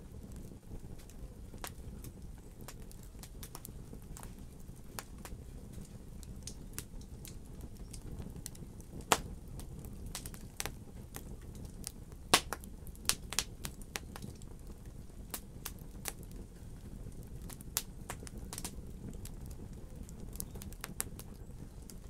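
Wood logs burning in a fireplace: a steady low rush of flame under frequent irregular crackles and sharp pops, the loudest pops about nine and twelve seconds in, with a quick cluster just after.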